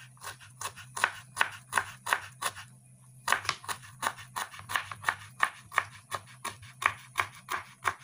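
Kitchen knife chopping ginger on a wooden cutting board to mince it: quick, even strokes about three a second, with a short pause about three seconds in.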